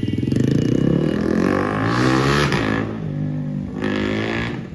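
KTM Duke 390's single-cylinder engine through an Akrapovic full-system exhaust with the dB killer removed, accelerating hard: very loud, the note climbing in pitch through the first two seconds or so, a second short rev about four seconds in, then dropping away near the end.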